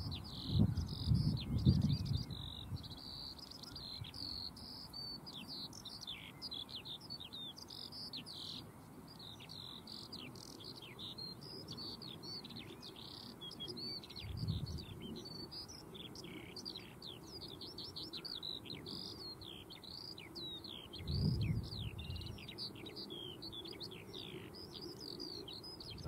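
Skylark singing its long, unbroken warbling song, a rapid run of varied high notes that never pauses. A few brief low rumbles come about a second in, midway and near the end.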